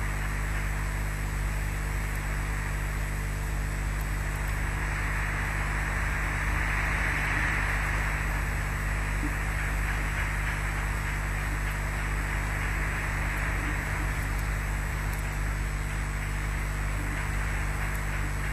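Steady hiss over a low electrical hum on a wildlife nest-camera's microphone feed, the hiss swelling a little about halfway through.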